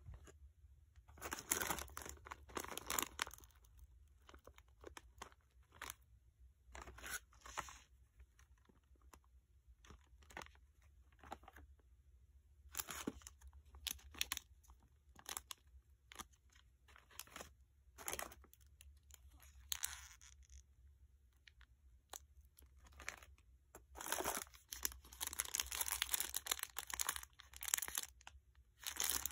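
Plastic snack wrappers crinkling and rustling as they are handled, in irregular bursts, with the longest and loudest stretch of crinkling near the end.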